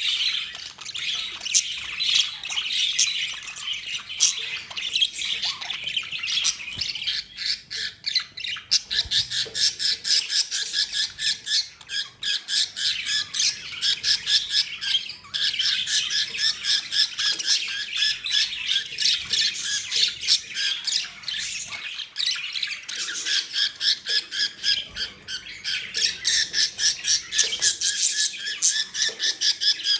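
Male budgerigars squawking in a rapid string of harsh, repeated calls, the sound of two males fighting for dominance.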